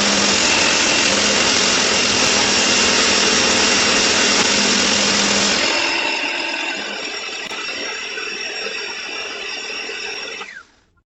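Handheld electric power tool running: loud at first, lighter after about five and a half seconds, then switched off with its motor winding down near the end.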